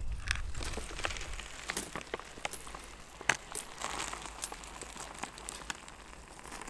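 Crinkling of a foil freeze-dried meal pouch, then water pouring from a small camp cooking pot into the pouch, a light trickle with scattered crackles.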